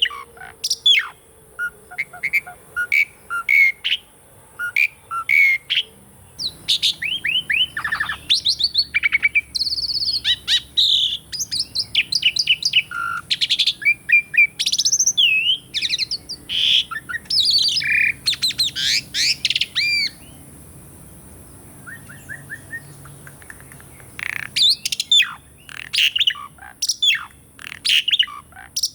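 Pied starling (jalak suren) singing: first a string of short repeated chirps, then a long, fast jumble of whistles and rising and falling notes. The song breaks off for a few seconds about twenty seconds in, then starts again.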